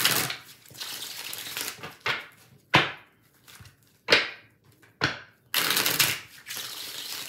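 A tarot deck being shuffled by hand: two long papery shuffling runs, with four sharp snaps of cards between them.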